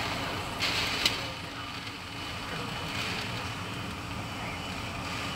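Hurricane Irma's winds gusting: a steady rush with stronger hissing surges, and a sharp knock about a second in.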